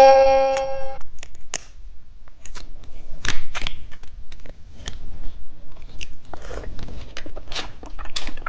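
A musical chime rings out and fades within the first second. Then come irregular small clicks, taps and plastic crinkles from a wrapped cheese stick snack being handled.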